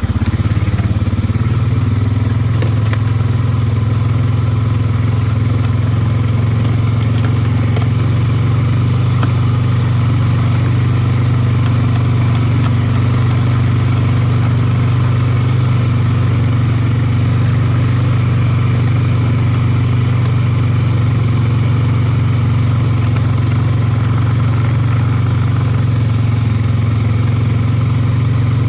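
ATV engine running steadily at a low, even speed while riding a farm trail.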